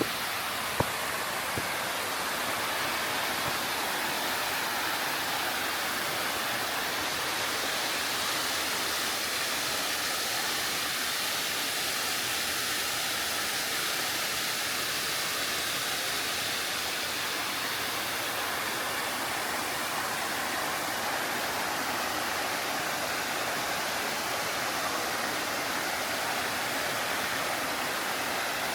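Mountain stream rushing steadily over a rock bed in a chain of small waterfalls, with one sharp click about a second in.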